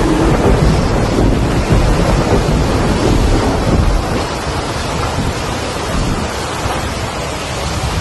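Strong wind buffeting the microphone: a loud, continuous rumbling rush with gusts, easing a little about halfway through.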